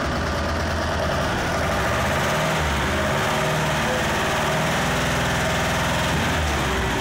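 Site dumper's engine running steadily, its pitch shifting slightly in the middle.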